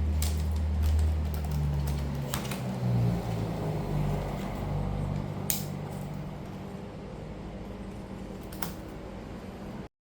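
Steady low hum with a few sharp plastic clicks, typical of a laptop screen's front bezel being pried off its clips. Everything cuts off abruptly near the end.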